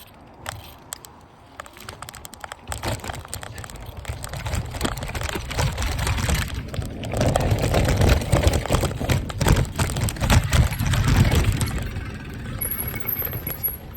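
Fat-tire mountain bike rattling and clattering over a rough dirt trail, with wind buffeting the microphone as a low rumble that grows louder about halfway through.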